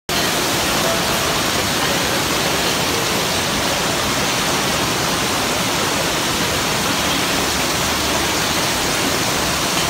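Torrential rain pouring down onto a flooded pavement and streaming off the edge of an awning: a loud, steady rush of water.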